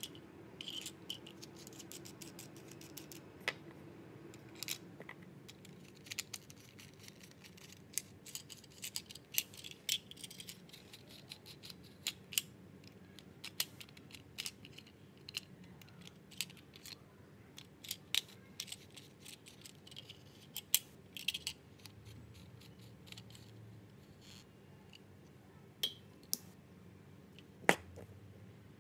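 Scattered clicks and taps of hands handling a plastic bicycle spoke LED light while fitting its batteries and end cap, with a sharper click near the end.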